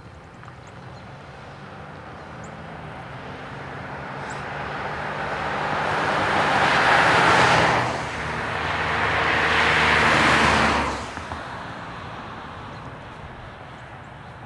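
Two cars passing close by one after the other, tyre and engine noise swelling slowly and falling away, the first about seven seconds in and the second about three seconds later.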